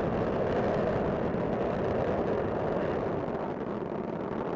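Space Shuttle Discovery's rocket engines and solid rocket boosters during ascent: a steady, dense rumble of rocket exhaust, easing slightly near the end.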